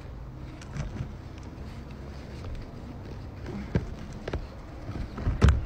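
Gloved hands and a small trowel scooping and pressing loose garden soil, with a few soft knocks and one louder thump near the end.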